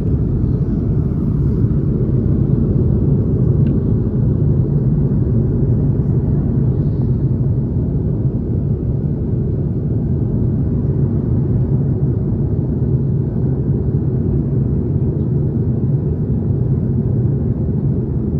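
Steady low rumble of a moving vehicle heard from inside, with no rise or fall in level.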